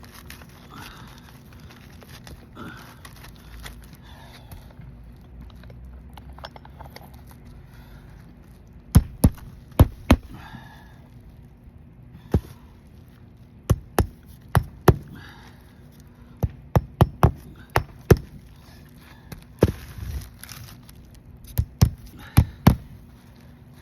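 Sharp hammer blows on an asphalt-shingle roof starting about nine seconds in, irregular and often two or three in quick succession, as in nailing down shingles.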